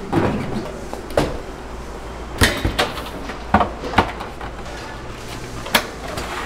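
Stainless-steel serving trays clanking as they are handled and stacked: several sharp metal knocks at irregular intervals over a steady low hum.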